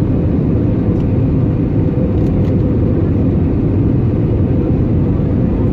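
Steady low noise of airflow and engines inside the cabin of an Airbus A320neo airliner during its descent.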